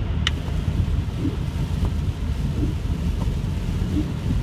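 Steady low rumble inside a car driving on a rain-soaked freeway in a heavy downpour: tyres on wet road and rain on the car, with the windshield wipers sweeping. A faint bump comes about every second and a half, and a single click sounds just after the start.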